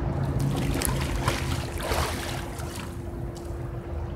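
Pool water splashing and lapping as a swimmer moves through it, with the sharpest splashes in the first two seconds, over a steady low hum.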